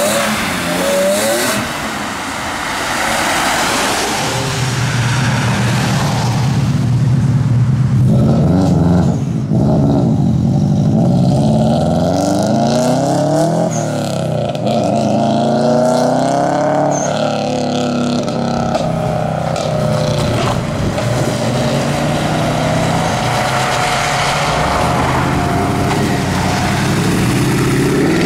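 Performance cars accelerating hard away one after another, their engines revving up and dropping back through the gears. Near the start it is an E46 BMW M3's straight-six, around the middle a Subaru Impreza's flat-four, and near the end a Mercedes C63 AMG's V8.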